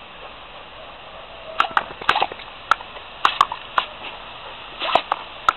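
Steady hiss of water spraying from a garden hose nozzle, broken from about a second and a half in by a run of sharp snaps and splashes as a yellow Labrador bites at the stream.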